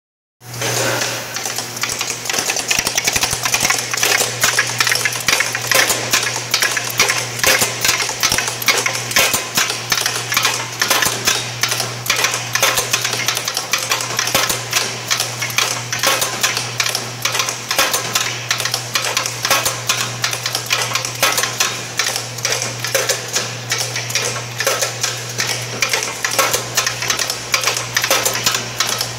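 Automated parts-feeding and handling machine running: a dense, rapid clatter of parts and actuators with a steady low hum underneath.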